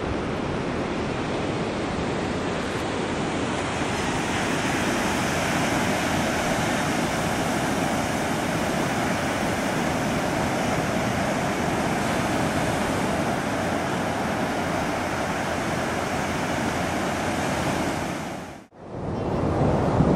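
Ocean surf breaking on a beach, a steady rush of waves with wind on the microphone. It cuts off abruptly near the end, then a similar windy rush starts again.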